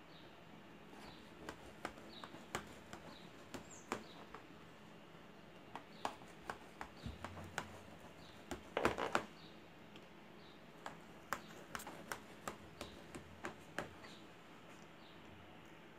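Knife blade ticking and tapping against an aluminium baking pan while a baked cassava cake is cut into strips: scattered light clicks, with a louder clatter about nine seconds in.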